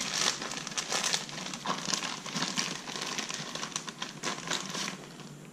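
Plastic packaging bag crinkling and rustling as it is handled and opened by hand to take out a part, in an irregular run of crackles that dies down about five seconds in.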